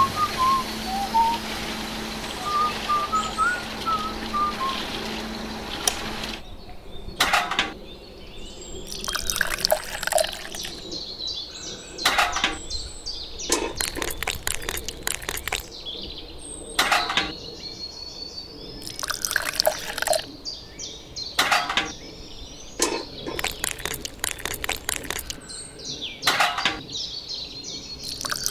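Birds chirping over a steady hiss for the first several seconds. Then come short splashes of water about every two seconds, with birds still chirping faintly between them.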